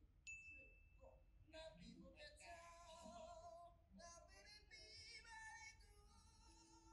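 Faint singing by a male voice with acoustic guitar, starting about a second and a half in. Just before it, a short high electronic tone.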